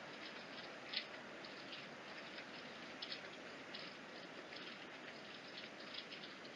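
Steady low hiss from a home security camera's microphone, with faint, short scratchy ticks every second or so; the clearest comes about a second in.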